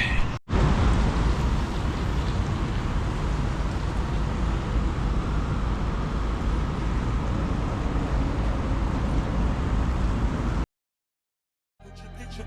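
Steady road noise of a car on the move, which cuts off abruptly near the end.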